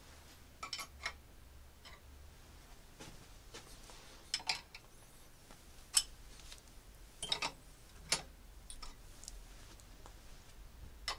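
Light metallic clicks and taps in small groups every second or two, from a spanner working the nuts on threaded bars a quarter turn at a time to lift the camshaft support casting off the cylinder head.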